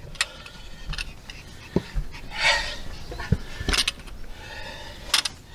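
Irregular footsteps and scuffs on stony ground, with one short breathy rush about two and a half seconds in.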